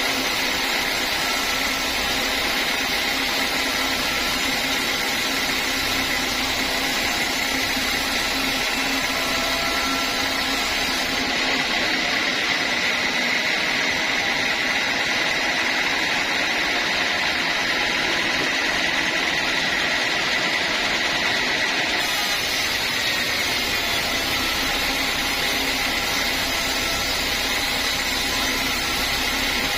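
Sawmill saw running steadily while cutting timber: an even machine noise with a steady high whine.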